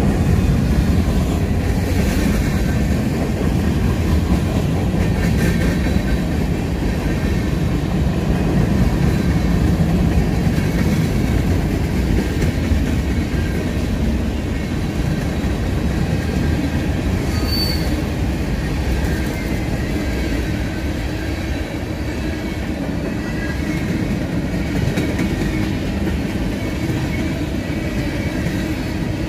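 Norfolk Southern freight cars rolling past: a steady rumble of steel wheels on rail, with faint high squeals of wheel against rail now and then and one short sharp squeal about two thirds of the way through.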